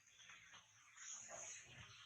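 Near silence, with a faint high-pitched animal squeak about a second in.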